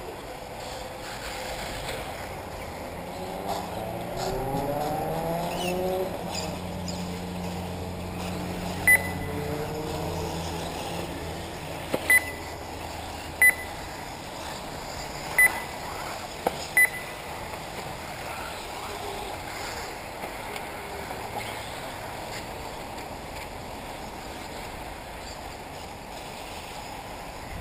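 Electric 1/8-scale RC off-road buggies racing, their motors whining in rising and falling glides as they accelerate and brake through the turns, strongest in the first half. Five short, sharp pips come in the middle stretch.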